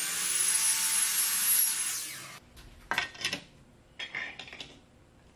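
A power tool taking a small bit off a metal trim piece: its high motor whine rises as it spins up, holds steady through about two seconds of cutting, then stops. A couple of light knocks follow as the trim piece is set against the camper edge for a test fit.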